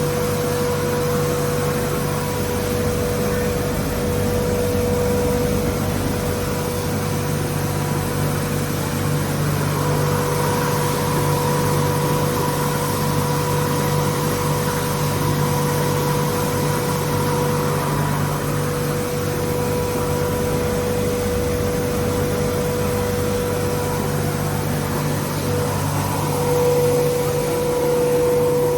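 Stone grain mill running steadily: an even mechanical hum with a constant whine over it.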